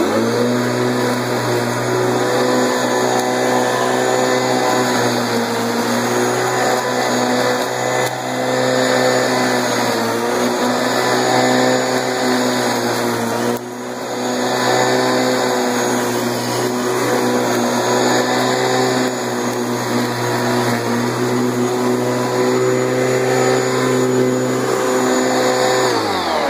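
Bosch Rotak 32 electric lawnmower's motor and belt-driven blade switched on and running steadily, its pitch dipping briefly a few times. Near the end it is switched off and begins to wind down. It runs smoothly now that the worn plastic toothed pulley under the belt has been replaced with a metal one.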